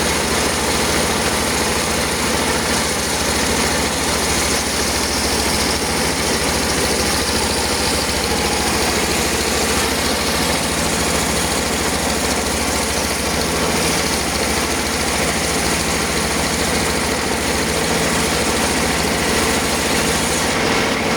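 Circular sawmill machine running steadily, a continuous engine-like drone with a fixed low hum.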